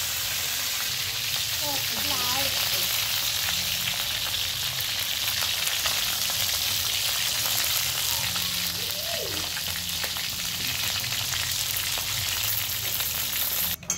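Whole frogs frying in oil in a wok, a steady crackling sizzle that cuts off abruptly just before the end.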